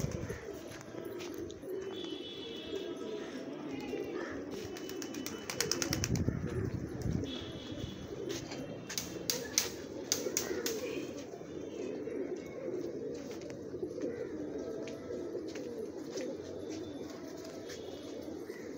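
A flock of domestic pigeons cooing together in a continuous low chorus. Clusters of short sharp clicks come about five seconds in and again around ten seconds in.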